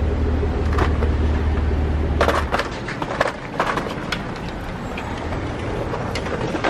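A steady low rumble that stops about two and a half seconds in, then a scatter of clicks and knocks from a plastic shopping basket's handles and a supermarket's push-bar entrance door as someone walks in.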